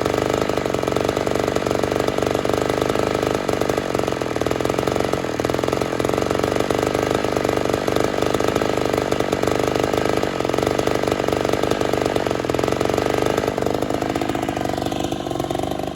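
Ported Poulan 245A chainsaw with a 28-inch bar running at full throttle through a big hardwood log, held steadily under load, then easing off near the end.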